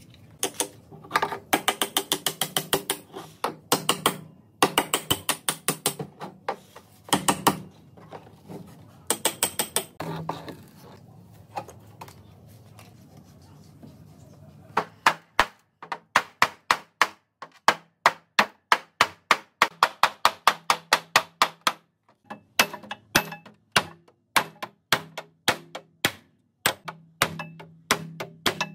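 Hand tools working on a rusted steel car body: bursts of fast clicking in the first half. From about halfway there is a long, steady run of sharp metallic taps, two or three a second.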